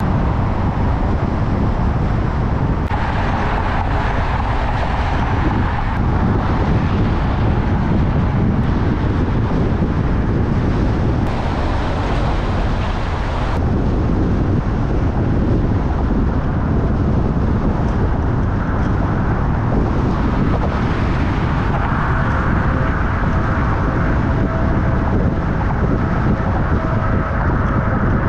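Steady rumble of a car driving in traffic: engine and tyre road noise, mostly low-pitched.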